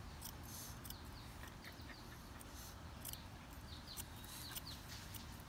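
Thinning shears snipping the hair along an Australian Terrier's jaw: soft, irregular clicks of the blades. Small birds chirp briefly in the background.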